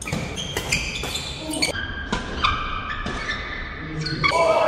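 Fast badminton doubles rally: rackets crack sharply against the shuttlecock in quick succession, with sneakers squeaking on the wooden court between shots.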